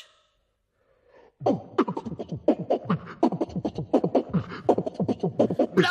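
A boy beatboxing into a microphone: a fast, steady run of vocal drum sounds and clicks, starting about a second and a half in after a brief silence.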